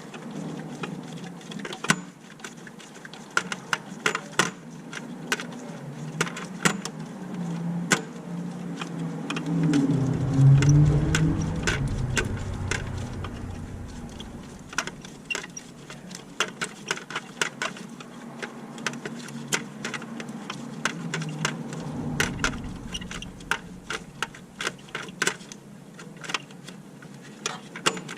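Irregular metallic clicks and clinks of hand tools working on a car's engine bay. A low rumble swells and fades about ten seconds in, and comes back more faintly past twenty seconds.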